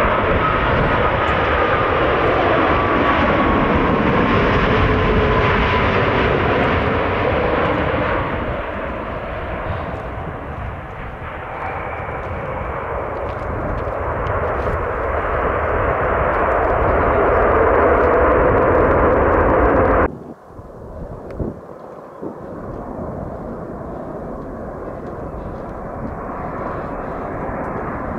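Boeing 787 jet engines passing low on landing, with a whine that falls in pitch as the airliner goes by, then engine noise rising again on the runway roll-out under reverse thrust. About 20 seconds in the sound cuts off suddenly to the quieter, steady jet noise of a second airliner on final approach.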